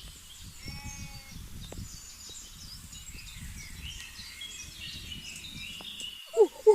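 Birds chirping steadily in the background, with one short bleat-like animal call about a second in. A voice starts right at the end.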